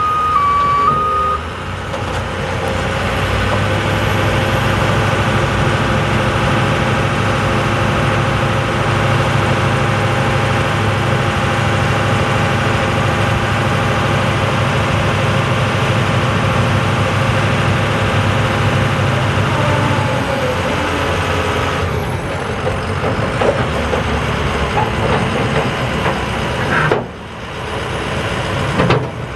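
Truck's International DT466 diesel engine running steadily while the crane's hydraulics retract an outrigger, with a two-tone warning beep alternating in the first second. About twenty seconds in, the engine's low note drops back as the hydraulic motion ends.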